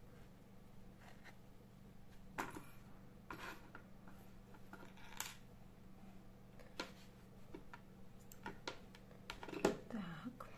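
Light handling noise while working on a knitted toy: scattered small clicks, taps and rustles of hands and small tools, the loudest near the end, over a steady low hum.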